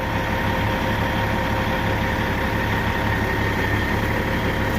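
Heavy truck's diesel engine idling steadily, with a faint steady whine over the low hum.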